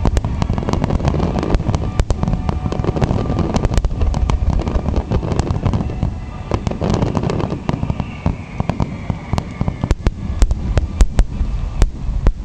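Aerial fireworks bursting in a rapid barrage: dense booms and crackles overlapping without pause, with a run of the loudest sharp bangs in the last couple of seconds.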